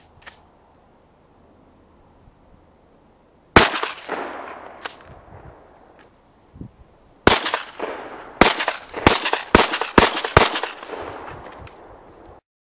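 12-gauge Remington 870 pump-action shotgun firing: one blast about three and a half seconds in, then six shots in rapid succession over about three seconds, each followed by a ringing echo.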